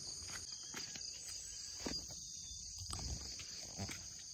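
Insects trilling steadily in a high, unbroken chorus, with a few faint footsteps on the path and stone steps.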